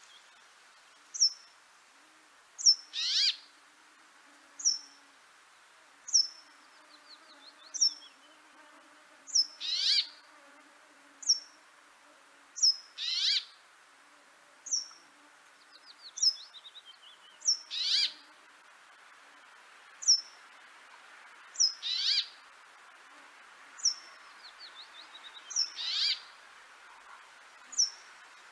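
Songbirds calling in a steady, repeating pattern: a short, high, falling note about every second and a half, a louder call sliding downward every few seconds, and a few brief trills.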